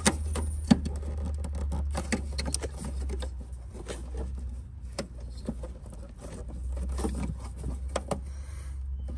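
Irregular plastic clicks, ticks and scrapes of fingers working the electrical plug and fuel-line clips on a Porsche Boxster's fuel pump cover, with the sharpest click under a second in. A steady low hum runs underneath.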